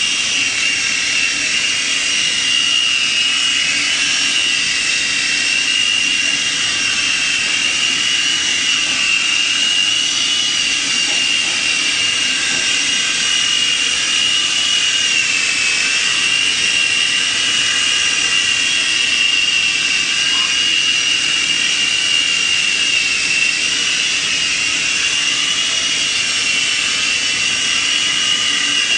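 Syma S026 mini RC tandem-rotor helicopter in flight: its small electric motors give a steady high-pitched whine over the whoosh of its rotors, the pitch dipping slightly a couple of times.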